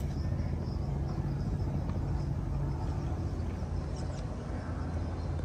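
Steady low mechanical hum, with a few faint high bird chirps, one about four seconds in.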